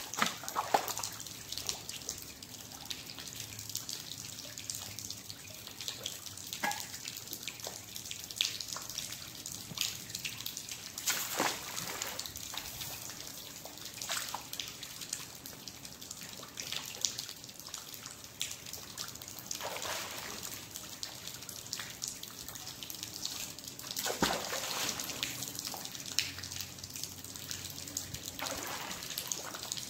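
Water splashing and dripping as a fishing magnet on a rope is thrown into a river and hauled back out, water running off the wet rope. Separate splashes stand out, the strongest about a third of the way in and again past two-thirds.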